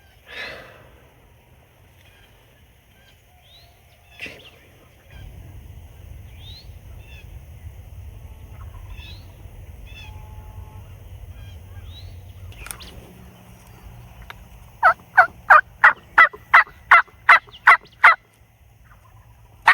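Turkey calling in a fast run of about eleven loud, evenly spaced notes, about three a second, in the second half. Earlier there are faint small-bird chirps and a low rumble.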